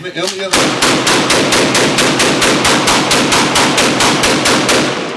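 A Draco AK-pattern pistol fired rapidly, one-handed, about five shots a second for some four seconds, emptying the magazine.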